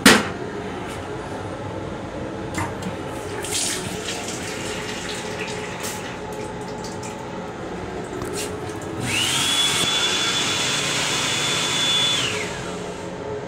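A toilet lid claps shut at the start, then a sink faucet runs. From about nine seconds in, the M7 railcar restroom's built-in hand dryer spins up to a steady high whine with a rush of air for about three seconds, then winds down. The dryer is the loudest part.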